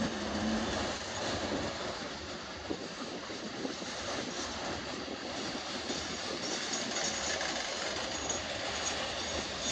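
Freight train's hopper and tank cars rolling slowly past on a curve, a steady rumble of wheels on rail. A faint high-pitched wheel squeal comes in about six seconds in.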